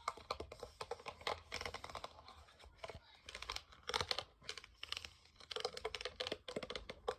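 Rapid, irregular clicking and crinkling, as from crinkly material being handled or something being tapped, in dense clusters with short pauses.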